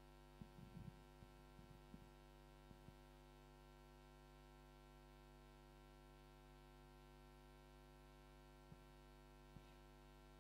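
Near silence: a steady electrical mains hum, with a few faint soft knocks in the first few seconds and two more near the end.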